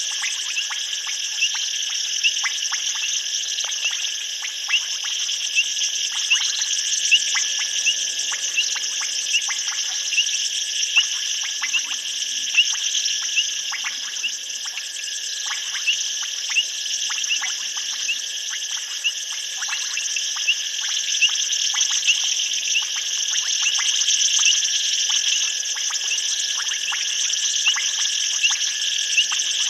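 Night chorus of insects, a steady high shrill in several bands, with short sharp chirps repeating irregularly about once or twice a second.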